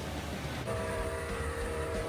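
Model diesel locomotive's sound-decoder horn blowing a chord of several tones together, starting about two-thirds of a second in and held, over a steady low rumble.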